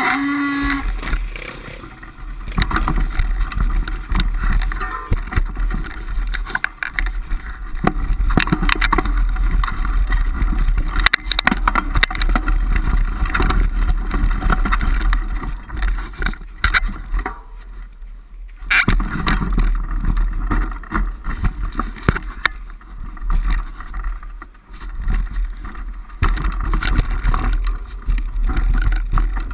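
Off-road motorcycle engine running and revving along a rough dirt trail, heard from the moving bike, with frequent knocks and rattles from the bumps. It drops off for about a second and a half around two-thirds of the way through, then comes back with a sharp click.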